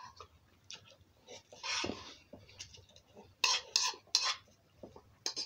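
Metal spoon scraping and clinking against a bowl: a short scrape about two seconds in, then a few sharp clinks.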